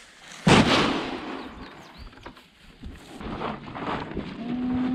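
A sudden loud bang about half a second in, fading over a second or so. Near the end a calf gives a steady low moo.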